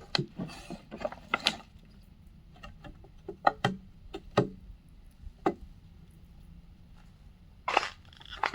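Irregular sharp clicks and knocks, several close together at the start, then single ones spread out, with a louder knock near the end.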